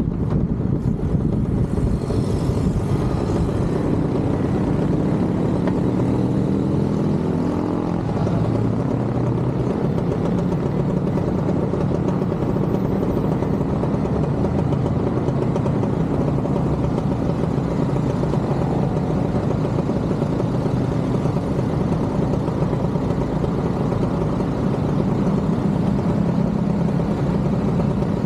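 Motorcycle engine running on the move, with a steady rush of road noise. Its pitch shifts in the first several seconds, then holds steady.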